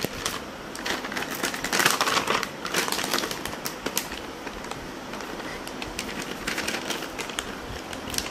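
Rustling and scratchy clicking as a puppy paws and scrabbles at a cloth-covered cushion, busiest in the first few seconds and lighter afterwards.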